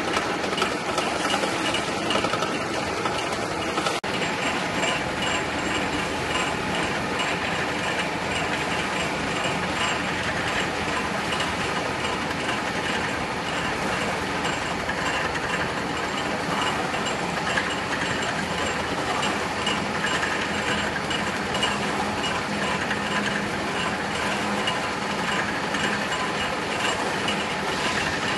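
Small refractory castable mixer running steadily, its paddles churning the castable with a continuous fast mechanical rattle.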